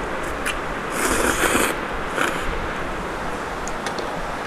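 Slurping of Maggi curry instant noodles: one long slurp about a second in, then a shorter one. Near the end come light clicks of chopsticks and spoon against the bowl.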